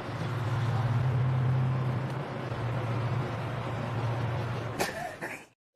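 A steady low rumble with a hiss over it, like a vehicle running, with a brief sharp sound near the end before it cuts off suddenly.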